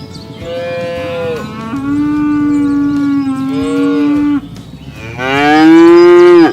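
Cattle mooing: long, drawn-out moos from more than one cow, two of them overlapping, then a louder final moo that cuts off abruptly.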